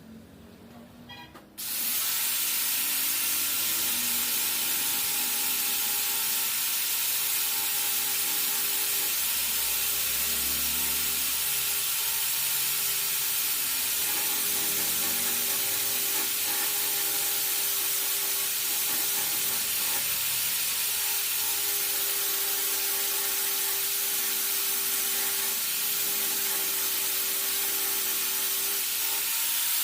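Oxy-fuel gas welding torch flame hissing steadily. It starts suddenly about two seconds in.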